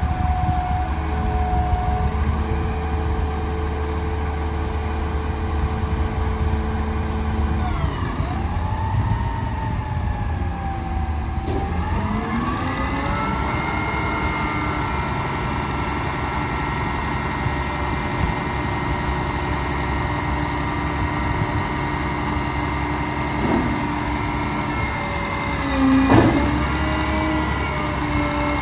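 McNeilus garbage truck's engine running steadily. Its pitch sinks about eight seconds in, rises again a few seconds later and holds high. A brief, louder sound comes near the end.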